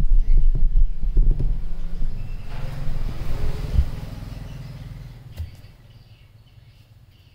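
Low rumble of a motor vehicle's engine, loud at first, then fading away over the next few seconds.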